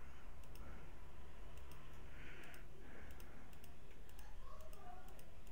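Computer mouse button clicking repeatedly, about two sharp clicks a second and unevenly spaced, as points of a polygon lasso selection are placed one by one. A steady low hum runs underneath.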